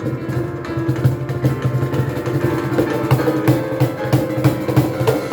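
Live music: a street piano playing held notes over hand percussion, likely a cajon, keeping a steady beat.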